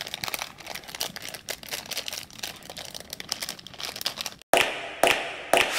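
Clear plastic bag of LEGO pieces crinkling and rustling as it is torn open and handled, with quick small clicks as the pieces shift inside. The sound breaks off briefly about four and a half seconds in, then a few sharper rustles follow.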